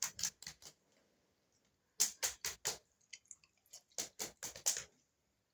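Quick, sharp hand claps in three short bursts of four or five claps each, with quiet between the bursts.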